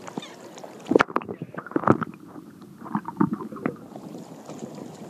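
Water sloshing and splashing against a camera microphone dipped at the surface; about a second in it goes muffled, with sharp knocks and gurgles, while the microphone is under water.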